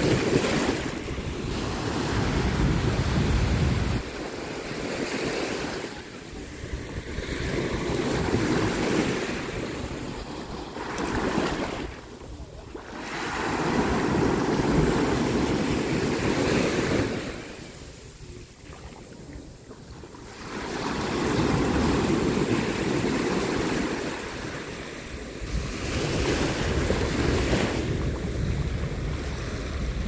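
Small waves breaking and washing up a beach, the surf swelling and ebbing every few seconds with short lulls between sets. Wind rumbles on the microphone at times.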